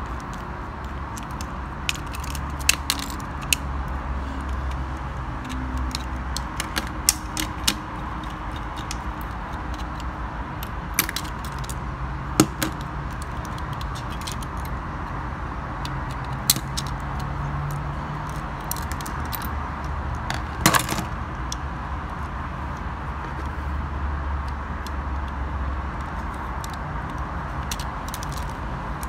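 Scattered clicks and taps of small plastic toy-train parts and a metal screwdriver being handled, the loudest a sharp clack about two-thirds of the way through, over a steady low background hum.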